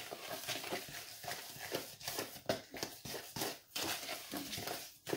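A damp, gritty mixture of washing soda, baking soda and coarse salt wetted with vinegar and water being stirred and scraped around a bowl, a run of irregular crunching strokes as it thickens into a paste.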